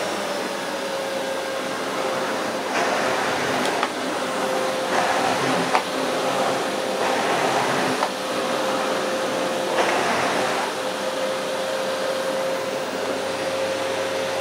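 Vax VCC-08A commercial tub vacuum cleaner running with a steady motor whine, in its reduced-suction hush mode, which makes it easier to push on carpet. A rushing swish rises four times as the floor nozzle is pushed across the carpet.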